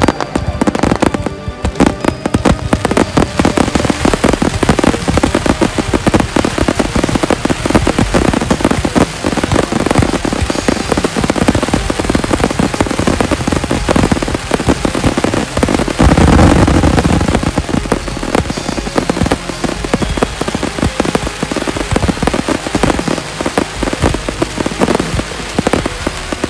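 Fireworks display: dense, continuous crackling and popping of many shells going off in rapid succession, with a louder burst about sixteen seconds in.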